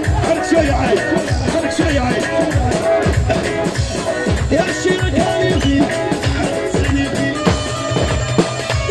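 Loud live rai and chaoui music: a steady, heavy drum beat under a wavering melody line.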